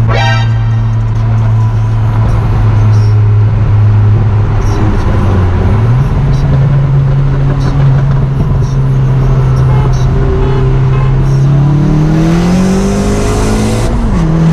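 Turbocharged 1.8T four-cylinder of a VW MK4 Jetta with a GT28R turbo, heard from inside the cabin, running at steady revs with a short falling whistle at the very start. The revs step up about six seconds in, then climb under hard acceleration with a rising turbo hiss over the last few seconds. They drop sharply at a gear change near the end.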